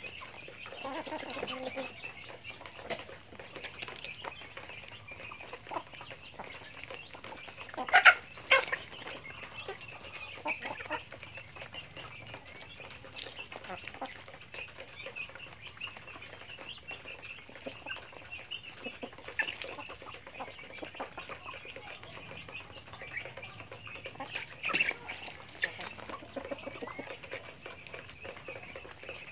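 A flock of chickens clucking while they peck at feed, over a steady high chatter. Two loud, sharp sounds come about eight seconds in, and another near the end.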